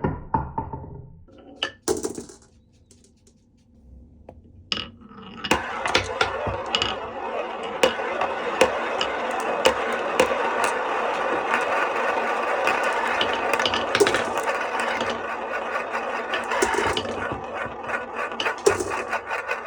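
Glass marbles rolling and clattering down a wooden HABA marble run. A few sharp clicks come in a short lull, then from about five seconds in there is a steady rolling rumble with frequent clicks and knocks as the marbles run along the track.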